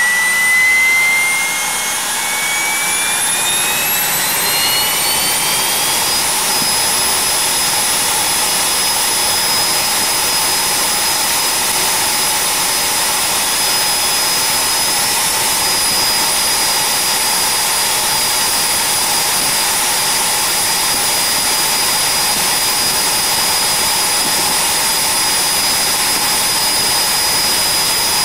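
Pratt & Whitney PT6A-112 turboprop engine running up just after start, heard close up from inside the nacelle. Its high turbine whine climbs for about the first six seconds as the engine accelerates, then holds steady at idle over a constant rush of airflow.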